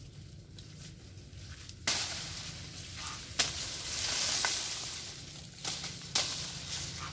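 Dry sugarcane leaves and stalks rustling and crackling as they are pushed aside and trampled, with a few sharp snaps. The crackling starts suddenly about two seconds in, is loudest for the next three seconds, and then eases off.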